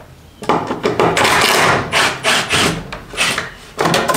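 Wooden gate boards scraping and rubbing against each other in several rough strokes as they are shifted.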